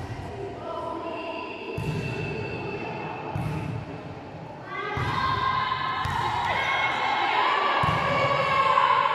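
A volleyball rally in a gym hall: several sharp ball strikes about a second and a half apart. Calls and cheers grow louder from about halfway through.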